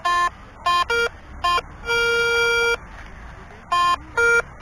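Metal detector giving a run of short beeps at varying pitches, about seven of them, with one longer tone of nearly a second about two seconds in, as its coil sweeps over buried metal. The hunter takes these signals for the many bottle caps in this spot.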